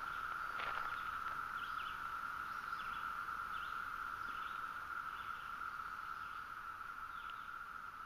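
Chorus of 17-year periodical cicadas (Magicicada, Brood II) in woodland: a steady, even drone, with a few faint short chirps above it.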